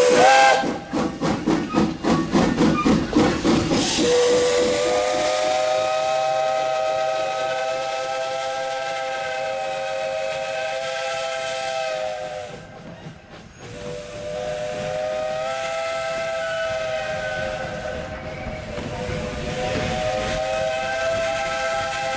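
1927 Vulcan Iron Works 0-4-0T saddle-tank steam locomotive exhausting in rapid chuffs, about four a second, for the first few seconds as its driving wheels slip on the grade. Its steam whistle then sounds in long blasts of several tones over a hiss of steam. The first blast lasts about eight seconds, and the others follow about fourteen and twenty seconds in.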